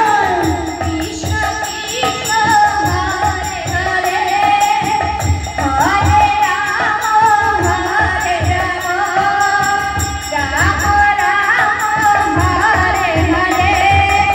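Live folk music: a woman singing an ornamented melody into a microphone over a steady drum beat of about two strokes a second.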